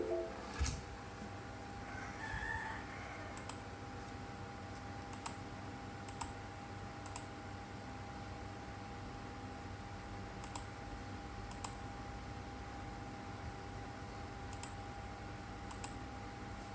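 Sparse, light clicks every second or so over a steady electrical hum, with a rooster crowing faintly about two to three seconds in.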